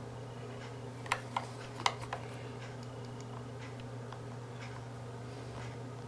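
A handful of light plastic clicks and taps as a small Android TV box's plastic case is handled and a small screwdriver is worked at its screws, four sharp ones close together about a second in, then fainter ticks. A steady low hum runs underneath.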